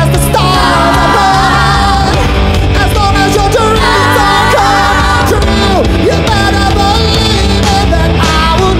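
Rock song performed live by several singers singing together in harmony over a loud band accompaniment, the voices holding long notes with vibrato.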